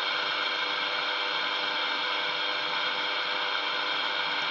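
Steady static with a constant buzzy whine and hum from the speaker of an AM CB radio: the channel is open but no one is talking.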